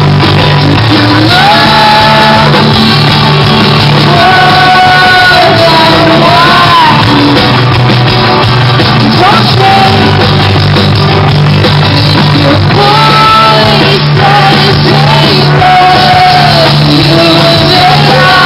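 Live rock band playing: a woman singing long, sliding notes over electric guitars, bass and drums, loud throughout.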